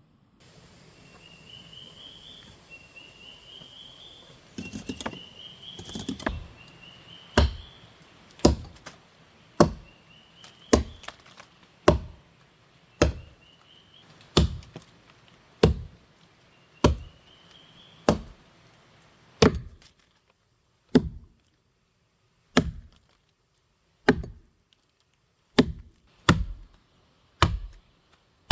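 Wood being chopped with steady strikes about once a second, each a sharp knock, beginning about four seconds in. A short rising chirp repeats through the first half.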